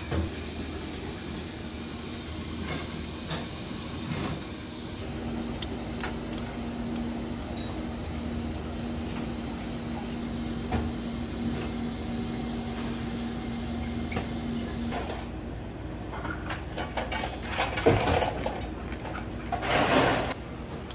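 Steady room hiss with a low hum, which stops abruptly about fifteen seconds in. Then come a few knocks and clatters, the loudest around eighteen and twenty seconds.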